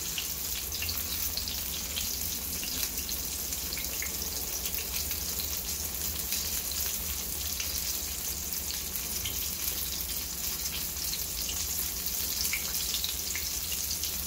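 A porgy fillet coated in flour and cornmeal frying in hot oil in a skillet: a steady sizzle with many small scattered pops and crackles.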